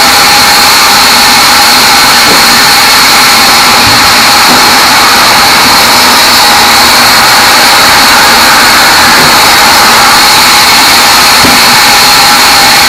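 Sawmill band saw running steadily and cutting small teak logs into boards: a loud, unbroken whir with a steady high whine.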